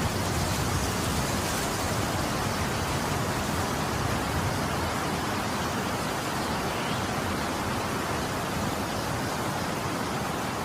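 Steady hiss of static-like noise spread evenly from low to high pitches, holding one level throughout, with no growling heard through it.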